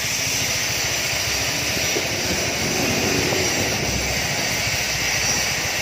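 Steady rushing noise of wind buffeting a phone microphone outdoors, with a flickering low rumble underneath.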